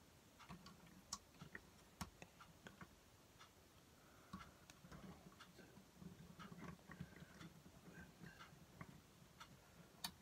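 Faint, irregular clicks and taps of plastic building bricks being handled, as fingers grip and work at the roof of a toy brick carriage to pull it off.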